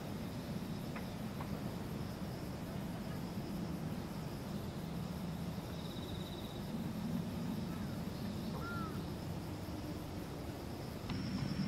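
Outdoor park ambience: a steady low rumble, like distant traffic, under a constant high insect buzz, with a short insect trill about six seconds in and a couple of faint chirps.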